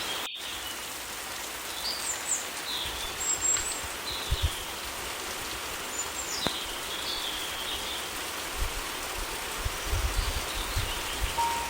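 Steady summer rain hiss with scattered short bird chirps, and a few soft low thumps now and then.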